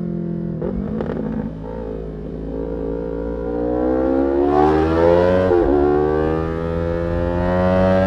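Yamaha R3's 321 cc parallel-twin engine through an Arrow aftermarket exhaust, accelerating hard with the revs climbing steadily. About five and a half seconds in the pitch drops sharply on an upshift, then climbs again.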